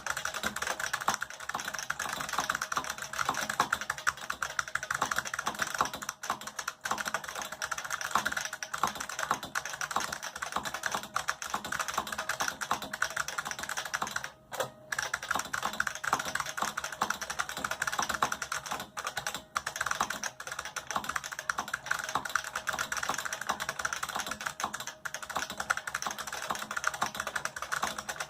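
IBM XT Model F keyboard with capacitive buckling-spring keys being typed on quickly and continuously, each keystroke a sharp click, with a short pause about halfway through.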